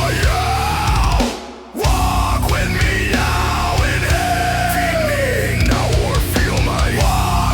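Groove metal song with distorted guitars and drums, its vocal line sung as arching cat-like meows. The whole band stops dead for about half a second a little over a second in, then crashes back in.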